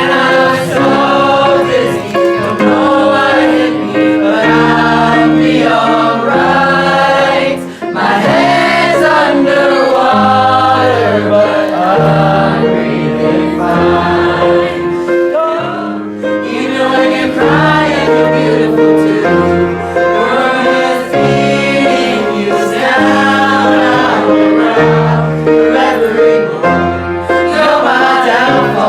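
Music: a group of voices singing together over an instrumental accompaniment of held bass notes that change every second or two.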